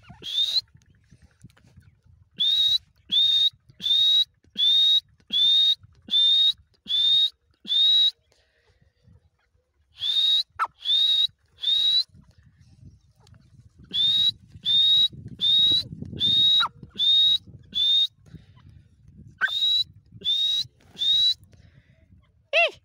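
Dakhni teetar, a francolin, calling: loud, short, high notes repeated about one and a half times a second in runs of four to eight, with pauses between the runs.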